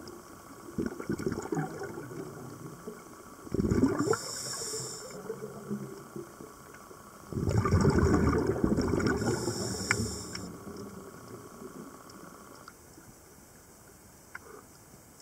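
Water bubbling and gurgling as heard by a submerged camera, with two louder gushes about three and a half and seven and a half seconds in, then fading to a faint hiss.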